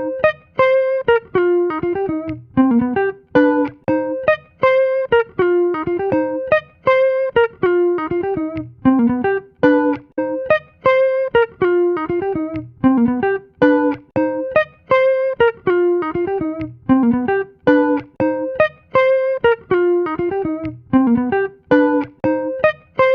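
Plucked guitar music: a short melodic phrase of quick notes repeating about every two seconds.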